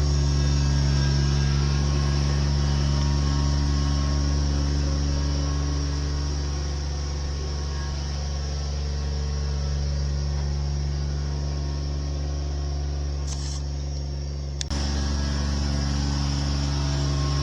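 A machine engine, likely digging equipment, running at a steady drone with no change in speed. Near the end the upper part of the sound dips out briefly and comes back with a click.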